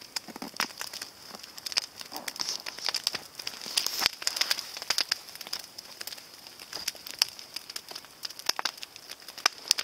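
Large wood campfire crackling, with irregular sharp pops over a steady hiss.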